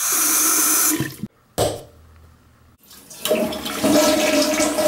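Bathroom sink faucet running, cut off about a second in. After a short quiet spell, a toilet flushes from about three seconds in: water rushing steadily, with a faint steady tone in it.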